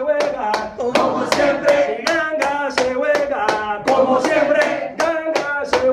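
A man chanting a Palo song while hand claps keep a quick, even palo rhythm under the voice.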